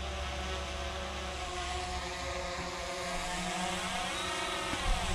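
Quadcopter drone's motors and propellers spinning, a steady whine of several tones at once. The tones bend in pitch about four seconds in, and a couple of low thumps come near the end.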